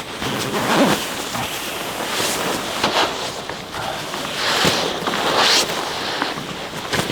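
Irregular rustling and scuffing, like a person moving about and handling fabric and gear, in short uneven bursts.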